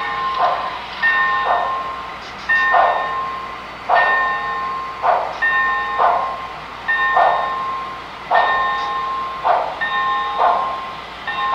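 Sound decoder of a Broadway Limited HO-scale Texas & Pacific 2-10-4 steam locomotive playing slow exhaust chuffs, about one a second. A steam-engine bell rings steadily over the chuffs.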